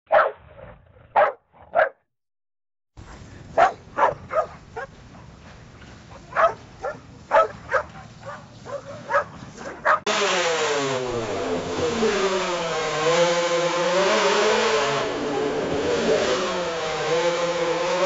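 AI-generated sound effects from a text-to-audio model: a dog barking, three barks, a short silence, then a string of barks over a light hiss. About ten seconds in it cuts to a racing car engine running continuously with a wavering, rising and falling pitch, generated as a Formula One car.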